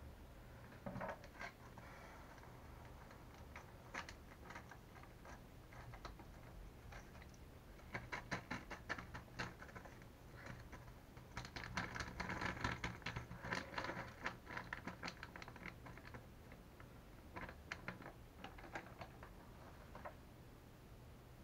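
Small hard parts of an RC truck's shock absorbers being handled and fitted together: quiet clicking, tapping and rattling in several bursts, the busiest about halfway through.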